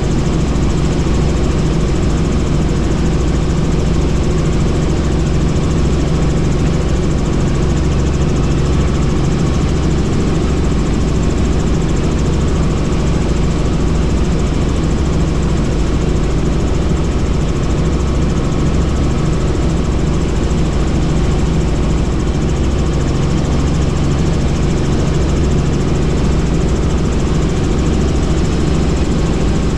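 Helicopter in flight: steady engine and rotor noise.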